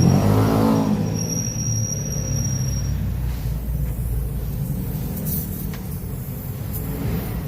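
Motor vehicle engine rumble, with a pitched engine note that shifts in the first second and then settles into a steady low rumble. A thin high whine sounds from about one to three seconds in.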